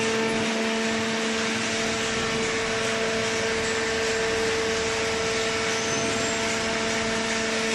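Hydraulic baling press running: a steady machine hum with a constant low drone and an even hiss, no change in load.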